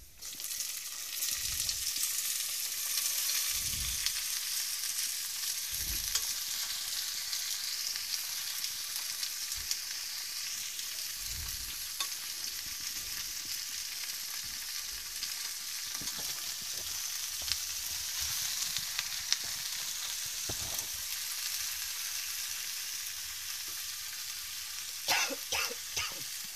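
Chopped summer squash pieces going into hot oil and fried onions in a metal pot: a loud sizzle that starts suddenly and keeps on steadily as the vegetables are stirred with a metal slotted spoon. A few sharp clicks come near the end.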